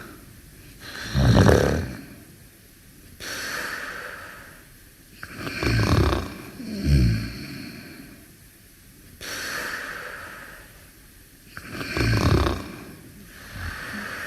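Snoring in slow, regular breaths: a low, rumbling snore about every five to six seconds, once doubled, each followed a couple of seconds later by a long, breathy hiss.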